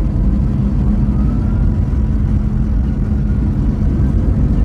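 Twin-propeller aircraft's engines and propellers running with a steady, loud low drone and a constant hum.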